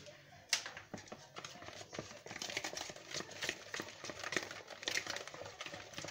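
Hand whisk beating cake batter in a plastic bowl: a steady run of irregular soft clicks and taps as the wires knock against the bowl, with a sharper knock about half a second in.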